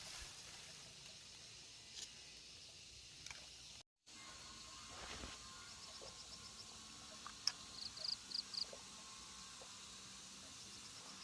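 Quiet outdoor ambience with a steady insect hiss and a few faint clicks. A quick run of about five short high chirps comes near eight seconds. The sound cuts out completely for a moment about four seconds in.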